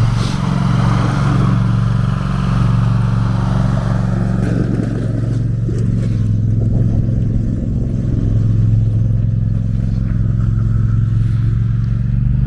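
Small snowplow's engine running steadily, a loud, even low hum.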